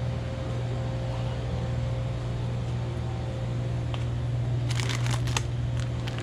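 Brief crinkling and rustling of plastic packaging being handled about five seconds in, over a steady low hum.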